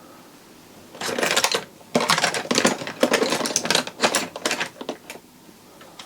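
Small metal tools and parts clattering and rattling as they are rummaged through, a busy run of clinks and rattles from about a second in until about five seconds in.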